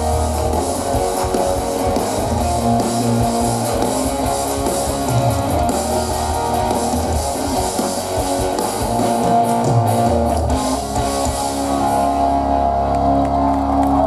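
Live band playing an instrumental passage with no singing, an electric guitar to the fore over bass and drums; near the end the music settles into longer held notes.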